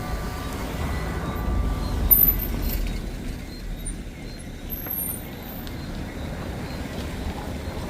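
Low rumble of a motor vehicle, loudest in the first couple of seconds with a sharp peak about two seconds in, then settling to a quieter steady drone. A few faint high squeaks occur.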